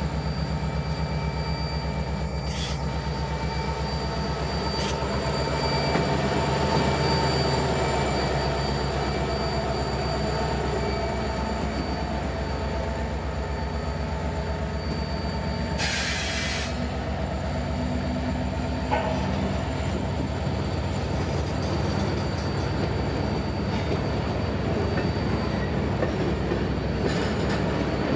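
Freight train passing close by, led by a Union Pacific diesel locomotive: steady rumble of the engine and wheels on the rails, with a fast rhythmic clatter and thin steel wheel squeal as boxcars and tank cars roll past. A short hiss comes about halfway through.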